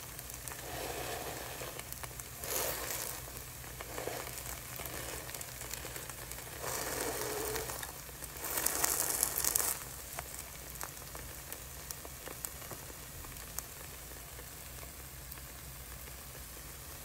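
Thin spinach-and-flour wrap batter sizzling in a greased frying pan: a steady hiss with scattered small crackles, swelling louder a few times, most strongly about nine seconds in.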